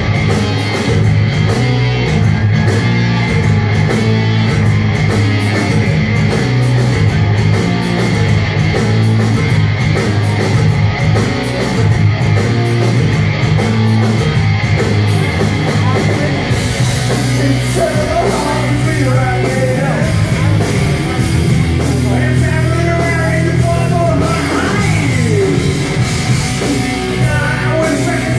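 A live rock band playing loud through Marshall amplifier stacks: electric guitars, bass and drums with a steady beat, and a lead vocal coming in a little past halfway.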